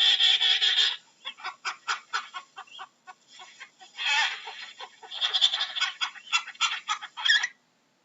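Penguin calling: a long, pulsing, honking call lasting about a second, then a run of short quick notes, another longer call about four seconds in, and more rapid notes that stop shortly before the end.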